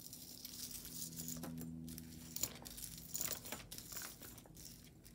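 Light, irregular crinkling and rustling of packaging, likely the plastic bag the jewelry lot came in, as pieces are handled and sorted, with a faint steady hum underneath.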